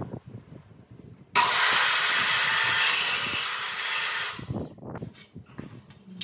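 Electric sliding miter saw starting abruptly about a second in, its motor whining up to speed and cutting through a wooden board for about three seconds before winding down. Light knocks of the board being handled follow near the end.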